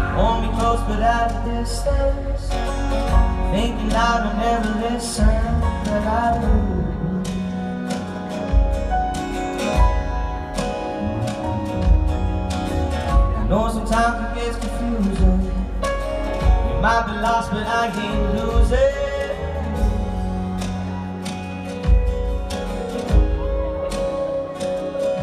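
Live pop-rock band playing, heard from the audience: a male lead voice sings phrases over strummed acoustic guitar, electric guitar, keyboard and a steady drum beat.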